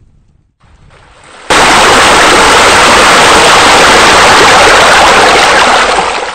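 Faint trickling water, then about a second and a half in a loud, steady rush of falling water starts abruptly, holds even, and cuts off suddenly at the end.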